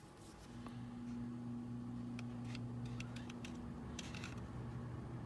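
Faint clicks and taps of a steel square and a marker being handled on a cutting mat, over a low steady hum that comes on about half a second in.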